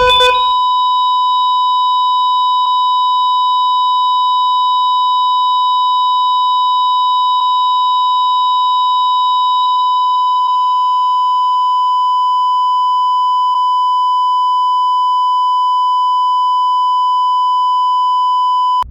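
Cardiac monitor flatline alarm: one continuous, steady high-pitched beep, the sign of no heartbeat (asystole, heart rate zero). It cuts off suddenly near the end.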